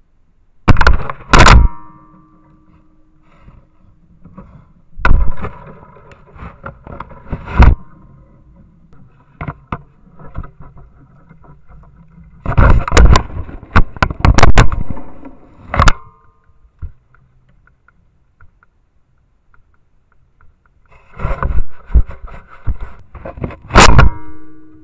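A black bear handling a trail camera: clusters of loud knocks, scrapes and rattles on the camera's housing, picked up by the camera's own microphone. They come in four bouts, each lasting about one to a few seconds, with quiet gaps between.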